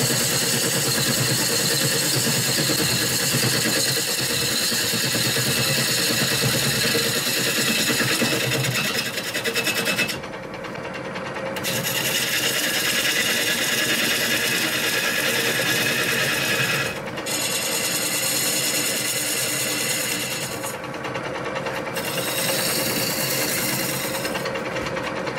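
Bowl gouge cutting a spinning river birch bowl blank on a wood lathe: a continuous cutting noise over the hum of the running lathe. The cut eases off briefly about ten seconds in, again around seventeen and twenty-one seconds, and near the end, as the tool is lifted.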